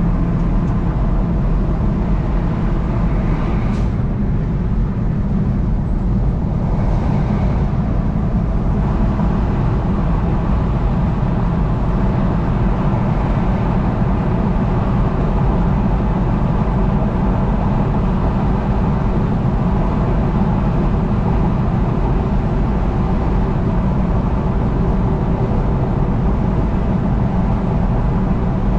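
Vehicle driving at highway speed: steady engine and tyre noise, with a single brief tick about four seconds in.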